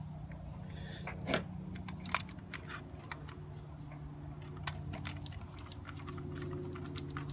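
Scattered light clicks and ticks of a screwdriver and small screws on the plastic housing of a tower fan, as its back cover is screwed on during reassembly. A steady low hum runs underneath.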